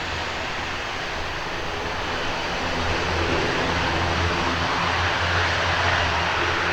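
Twin turboprop engines and propellers of an ATR 72-600 airliner droning steadily, growing louder about two and a half seconds in as the aircraft comes nearer.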